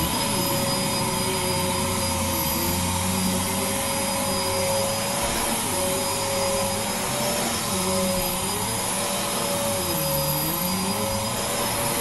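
Upright vacuum cleaner running on carpet: a steady motor whine over a rushing airflow, its lower tones dipping a little in pitch now and then.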